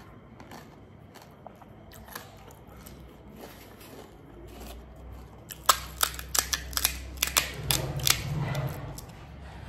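Crunching of crisp panipuri shells: a run of sharp crackles for about two and a half seconds, starting a little past halfway, after a quieter stretch of faint mouth clicks.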